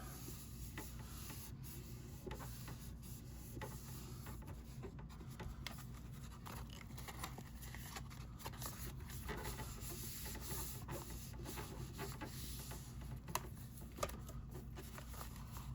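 Fingers pressing and rubbing a glued cardstock piece flat onto a pop-up card to set the adhesive: faint scratchy rubbing of paper with scattered light taps.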